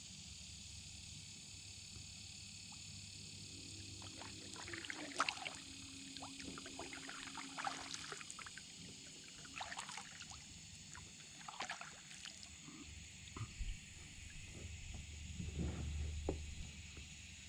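Kayak paddle dipping into calm lake water, with water pouring and dripping off the blade at each stroke. The strokes come every two seconds or so, starting a few seconds in.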